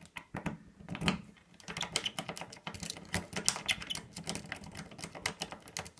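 A lock pick being rocked in a wafer lock's keyway: quick, irregular metal clicking and rattling as it scrapes over the wafers. A few clicks come at first, then they come thick and fast from about two seconds in.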